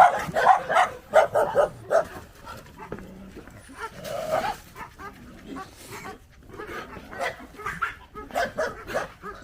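Several dogs barking in short, overlapping barks, thickest in the first two seconds and again near the end, with a quieter patch in between.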